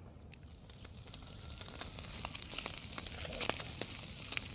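Wood fire crackling with a sizzling hiss that slowly grows louder, dotted with sharp pops.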